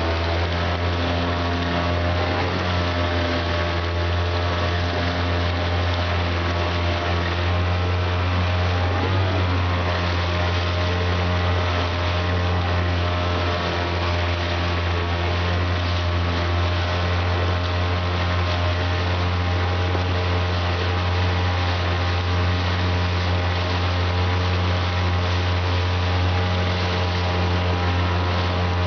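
Outboard motor running steadily under load, pushing a heavily loaded 20-foot Old Town canoe, with a brief waver in its pitch about nine seconds in. Water rushes and splashes along the hull.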